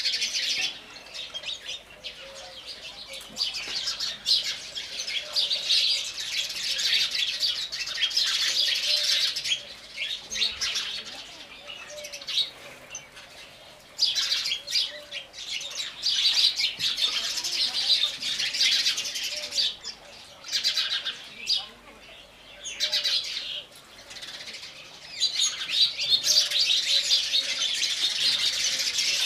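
A flock of house sparrows chirping, many short overlapping chirps that swell into dense bouts and ease off between them.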